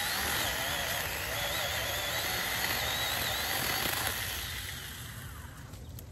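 JPOWTECH 4-inch cordless mini chainsaw running through a branch, its motor pitch wavering under the load of the cut, then winding down and stopping about four seconds in.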